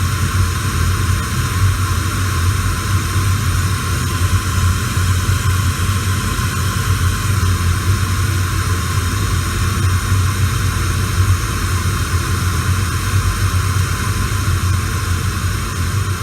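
AM/FM radio static: a steady, unbroken hiss over a low hum.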